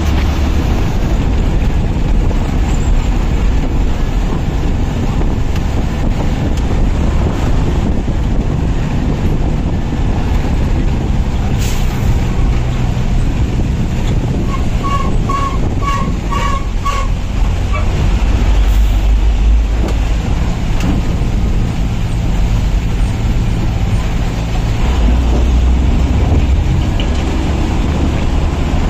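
A moving bus's engine and road rumble with wind rushing past the open window. About halfway through, a horn sounds a quick run of six or seven short beeps.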